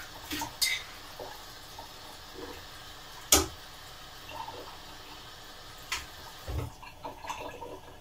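Kitchen tap running into a sink as sprouted lentils are rinsed, with several knocks of a dish or strainer against the sink; the loudest knock comes about three and a half seconds in.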